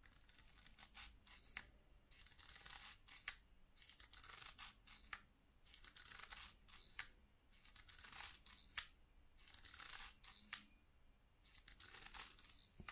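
Curta mechanical calculator's crank turned seven times in a row, each turn a mechanical whirring rattle ending in a sharp click. The crank is in subtraction mode, and each turn subtracts 67 from the thousands column as one step of a division done by repeated subtraction.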